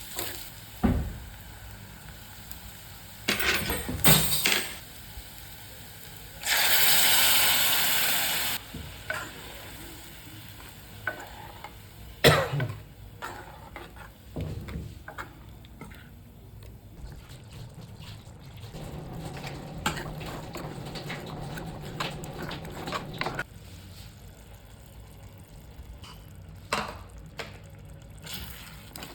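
Cooking at the stove: a spatula stirring, scraping and knocking against a pan, with food sizzling in hot fat. About seven seconds in there is a loud sizzle lasting about two seconds, and a steady hum runs for a few seconds past the middle.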